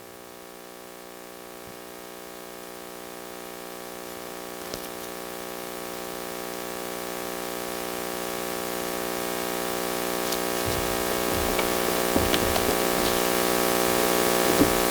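Buzzing electrical hum with a hiss over it on the microphone and sound-system feed, growing steadily louder.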